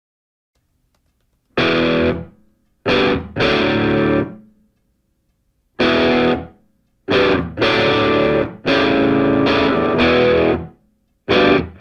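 Music: distorted electric guitar playing chords in short, hard stops with silent gaps between them, and one longer held passage of about two seconds near the end. It starts after a second and a half of silence.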